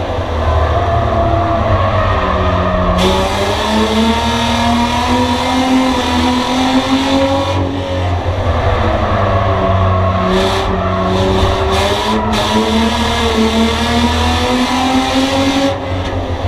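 Bomber-class race car's engine heard from inside the cabin at race speed. Its pitch climbs and holds along the straights, then drops back as the driver lifts for the turns, a few times over.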